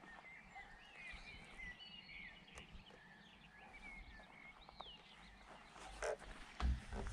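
Small birds chirping and twittering in short rising and falling notes. Near the end, a few louder knocks and rustles close to the microphone.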